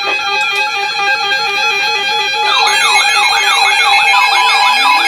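Weather radio alert alarms sounding together for a new warning: steady and alternating alert tones, joined about halfway through by a fast up-and-down warbling siren tone. A rising siren tone starts near the end.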